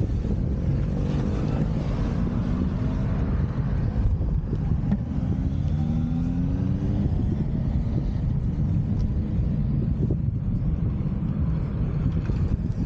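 Heavy wind buffeting on the microphone from riding downhill at speed, with a vehicle engine rising in pitch twice, briefly about a second in and again from about five to seven seconds.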